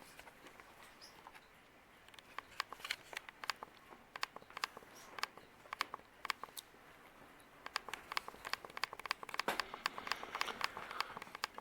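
Crinkling and sharp little clicks of something being handled, in irregular bursts, growing denser over the last few seconds.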